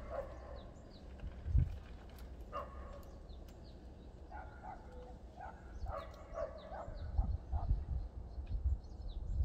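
A dog barking in the distance, a few short barks at a time, with small birds chirping. There are a few low thumps on the microphone, the loudest about a second and a half in.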